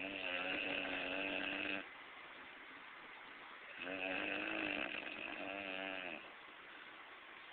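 A person snoring loudly: two long, pitched snores of about two seconds each, the first at the start and the second about four seconds in, with a quiet breath between.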